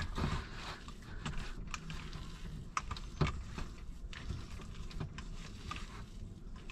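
Irregular light clicks and knocks of kitchen utensils as chocolate chips are worked into banana bread batter.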